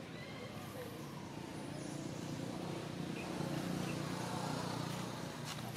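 Low, steady engine hum that grows louder about halfway through and then eases off.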